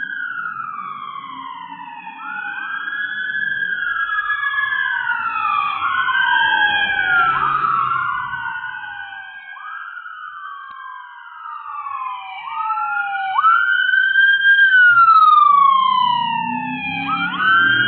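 Emergency siren on a passing car wailing, each cycle a quick rise in pitch and a slow fall, repeating every two to three seconds and loudest a little past the middle. The rumble of the vehicle's engine and tyres comes in near the end.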